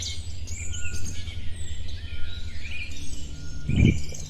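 Birds chirping over a steady low rumble, with a short thump near the end.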